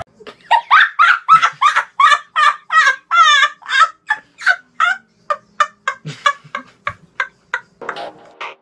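A boy laughing hard: a long run of quick ha-ha pulses, about three or four a second, loud at first and slowly trailing off.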